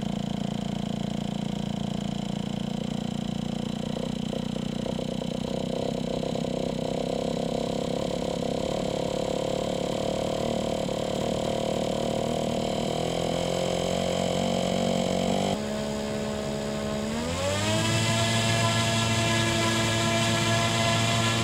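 ScanEagle drone's small engine being turned over and run with a handheld electric starter pressed to the propeller hub: a steady, pitched motor drone that shifts in pitch. About 15 seconds in the sound changes suddenly, and soon after an engine revs up, its pitch rising and then holding steady and louder.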